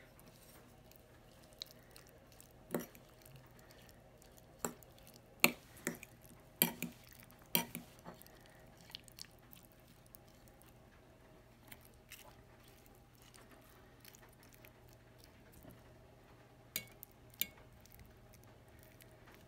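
Metal fork clinking and scraping against a ceramic bowl and plate while picking at food: a series of short, sharp clinks, most of them bunched between about three and eight seconds in, with two more near the end.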